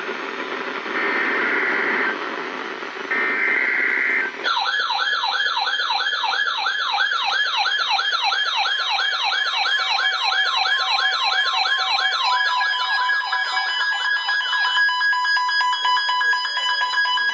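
Emergency Alert System alert over a hissy radio receiver: three short bursts of screechy data tones about a second apart. From about four seconds in, a fast warbling siren-like alert tone starts, joined later by a steady alert tone that carries on after the warble stops near the end.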